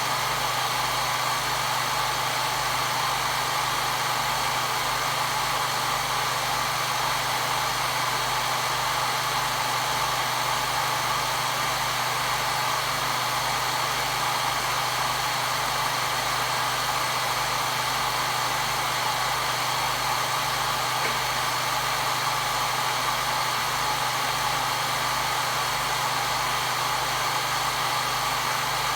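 Hair dryer running steadily: a constant rush of air with a steady motor hum, unchanging throughout.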